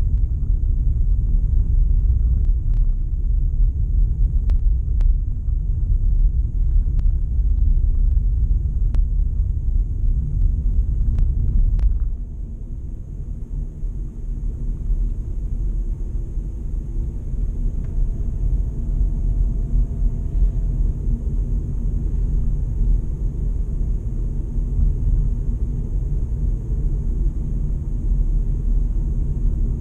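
A car's road and engine rumble heard from inside the moving cabin, a steady low din with a few light ticks in the first dozen seconds. About twelve seconds in, the rumble drops noticeably in level and stays lower, as though the car has slowed.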